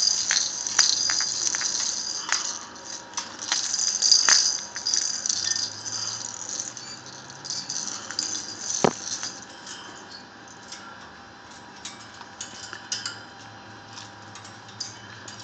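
Baby black flying fox making high-pitched chattering squeaks with sharp clicks, busiest in the first few seconds and again about eight seconds in, then trailing off quieter.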